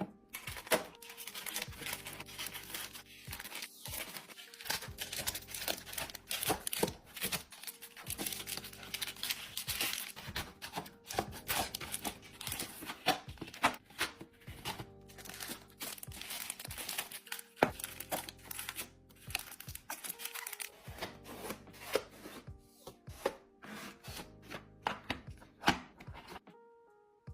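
Chocolate bars and their plastic and paper wrappers being handled, crinkling, rustling and tearing, with many small clicks and taps as they are set in place. Soft background music runs underneath.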